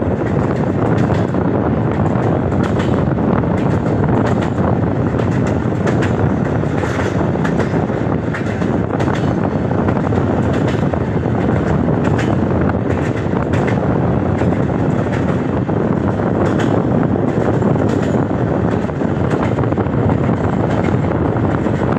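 A train running across a bridge, heard from the moving train: a steady, loud rumble of wheels on rail with irregular clicks throughout.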